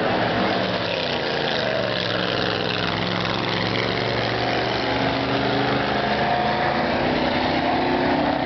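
Engines of several vehicles racing around an oval track, a school bus among them, running hard together as a steady, overlapping drone whose pitches drift slightly up and down.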